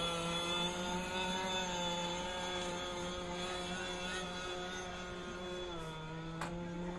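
Radio-controlled inshore racing boat's 26cc two-stroke petrol engine running at speed, a steady high buzz that dips briefly in pitch near the end before picking up again.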